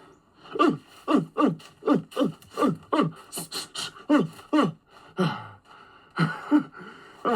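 A man gasping and grunting in short, falling vocal bursts, about two or three a second, breathless from exertion.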